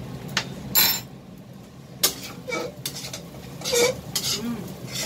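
Metal spoon clanking and scraping against a stainless steel pan as fried rice is stirred: a series of irregular clatters, the loudest near the start, about two seconds in and near four seconds.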